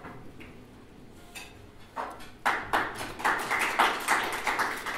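Small audience applauding, starting about two seconds in.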